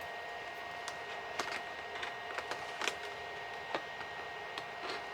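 Fingers picking and scratching at a perforated cardboard advent calendar door, giving scattered small clicks and scrapes over a faint steady hum.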